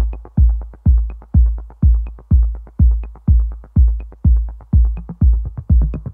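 Electronic background music: a steady, deep drum-machine kick about twice a second with light percussion over it, and extra beats filling in near the end.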